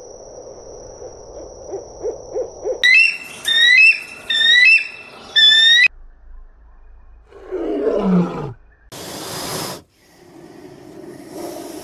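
A great horned owl gives a few short low hoots, then a run of about six high, rising calls. A lion then gives a single falling groan, and a snake hisses briefly.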